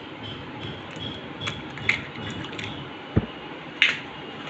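An egg cracked against a glass mixing bowl and dropped in: a few light clicks, then one dull knock about three seconds in, followed by a short crackle.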